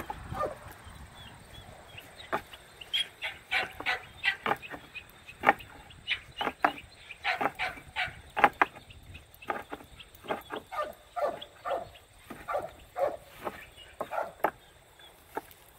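Alpine goat's horns knocking and scraping against dry tree branches as he rubs them to scratch an itch. The knocks come in an irregular run, several a second, from about two seconds in until shortly before the end.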